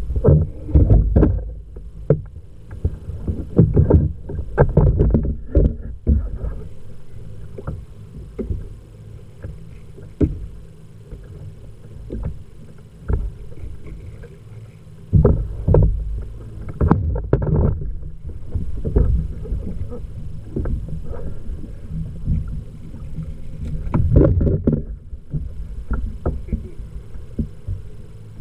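Water lapping and slapping against a fishing kayak's hull in irregular louder bursts, with scattered short knocks and clicks.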